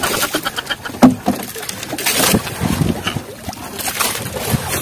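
Irregular knocks and thumps on a small wooden fishing boat with bursts of splashing water, as a bobo fish trap is hauled and handled aboard. A sharp knock about a second in is the loudest.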